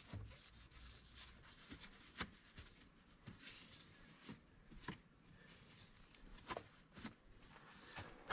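Near silence: faint hand-handling noise, quiet rustling with a few small scattered clicks and taps.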